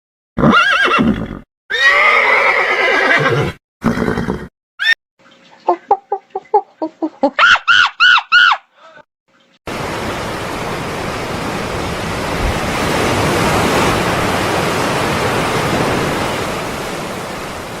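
A string of separate animal calls, including a horse whinnying in a quick series of rising-and-falling squeals about 6 to 9 seconds in. From about 10 seconds on, a steady even rushing noise like water or surf.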